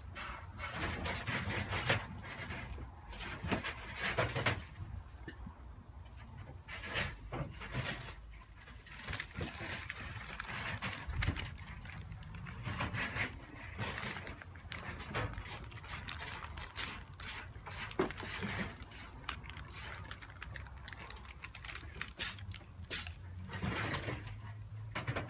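Several cats eating dry kibble from steel bowls: many irregular crunches and clicks of chewing, close by.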